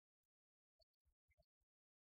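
Near silence: an empty audio track with only a few extremely faint scattered ticks.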